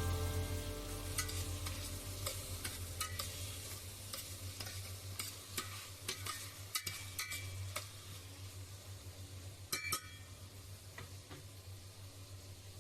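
Food sizzling in a frying pan while it is stirred, with scattered clicks of the utensil against the pan. A steady low hum runs underneath, and the whole sound fades gradually.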